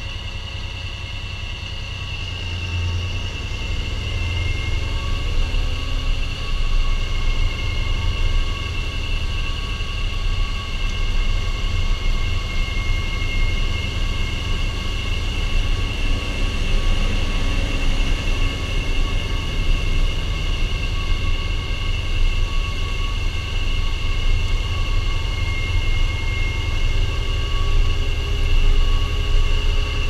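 Fendt Vario tractor driving across a field, heard from a camera mounted on its front: a steady diesel engine rumble with a constant high whine over it, growing louder a few seconds in.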